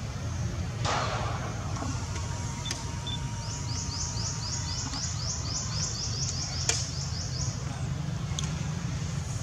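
Steady low outdoor rumble, with a rapid run of high chirps, about four a second, for roughly four seconds in the middle and a few faint clicks.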